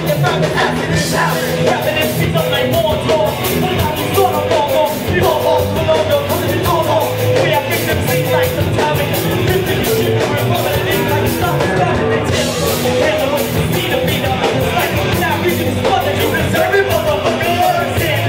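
Live rap-rock band playing loudly: distorted electric guitars, bass and drums with a steady beat, and vocals over the top.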